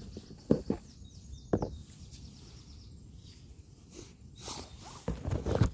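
A few short, sharp knocks and handling noises, with a cluster of them near the end.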